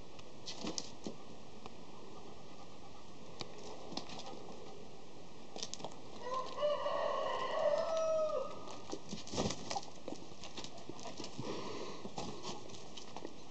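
A rooster crows once, a single call of about two seconds a little past the middle, amid scattered scuffs and sharp taps.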